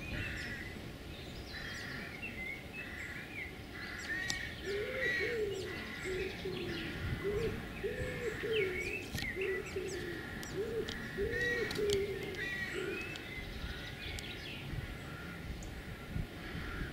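Songbirds chirping and trilling throughout, with a pigeon cooing in a run of low repeated notes from about five seconds in until about thirteen seconds in.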